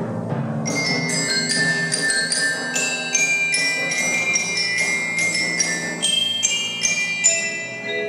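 A percussion ensemble playing tuned mallet percussion: a quick run of high, ringing, bell-like struck notes comes in about a second in, over lower sustained notes.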